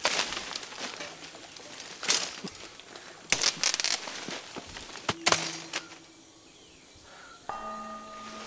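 Leaves and branches rustling and snapping as a man pushes through dense jungle undergrowth, in several sharp bursts over the first six seconds. A sustained music chord of held tones comes in near the end.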